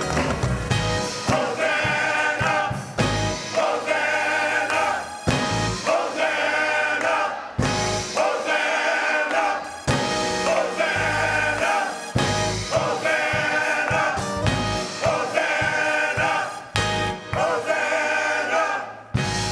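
Gospel music: a choir singing over a band, with a steady beat.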